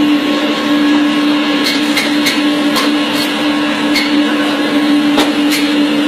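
Band-saw meat cutting machine running with a steady motor hum, its blade cutting through bone-in meat as pieces are fed in, with sharp clicks at irregular intervals.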